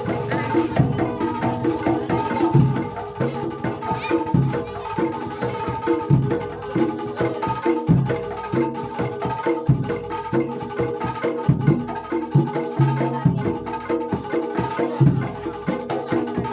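Jaranan Dor ensemble music: a dense, steady rhythm of drums and struck percussion, with pitched melodic lines above it.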